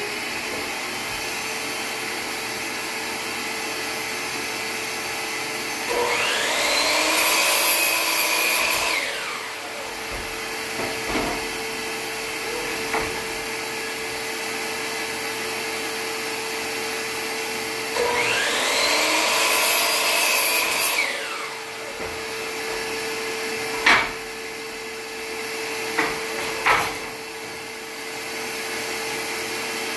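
Shop vacuum running steadily for dust collection, while a DeWalt sliding miter saw twice spins up and cuts through a tongue-and-groove pine board, about 6 s and 18 s in, each time winding up in pitch and then winding down. A few sharp knocks come near the end as the board is handled.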